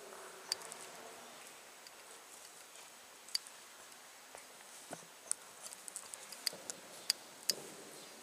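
Quiet pause in a large reverberant hall with scattered sharp clicks and taps, a few at first and more often in the second half.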